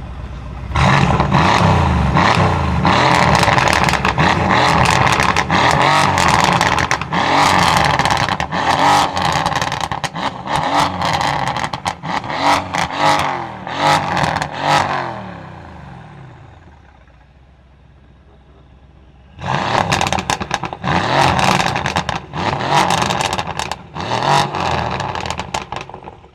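Mercedes-AMG C63 S's twin-turbo 4.0-litre V8, tuned to 630 hp and running a decatted straight-pipe exhaust, revving hard with a dense run of crackles and pops. The revs fall away about fifteen seconds in, it goes quieter for a few seconds, then a second round of revving and crackling starts about twenty seconds in.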